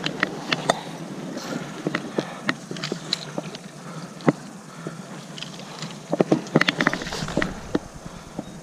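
Steady hiss of a running stream, with scattered sharp clicks and knocks as a fly rod and landing net are handled, thickest about six to seven and a half seconds in.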